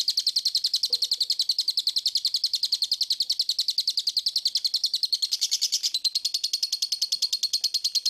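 Lovebird chattering in one long unbroken run of rapid, high chirps, about eleven a second, kept up steadily without a break: the long continuous song that Indonesian lovebird keepers call ngekek.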